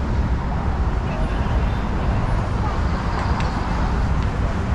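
City street ambience: a steady rumble of road traffic from passing cars, with faint voices of passers-by.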